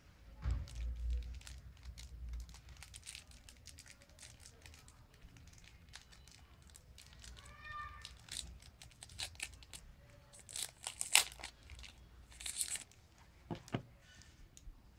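Thin plastic wrapping crinkling and tearing as it is peeled off a Samsung smartphone battery, in scattered crackles, with a few low handling bumps in the first couple of seconds and the loudest, sharper rustles a little past the middle.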